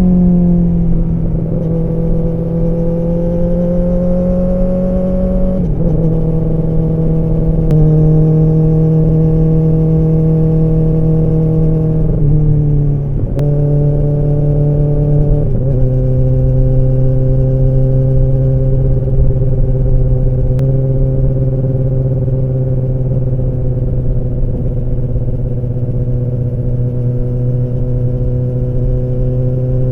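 Kawasaki ZX-10R inline-four exhaust running at steady moderate revs in a tunnel. Its note falls in the first second, then shifts step by step and settles lower for about the last 14 seconds.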